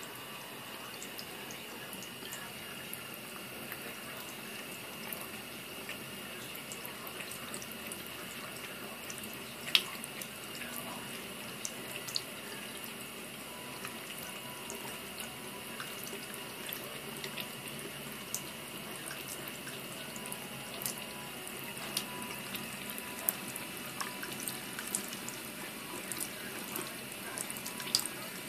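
Tap water running steadily through a whale-shaped faucet fountain attachment, its thin arcing stream splattering into a bathroom sink. Scattered sharp splashes and clicks break in as a cat laps at the stream, the loudest about ten seconds in and again near the end.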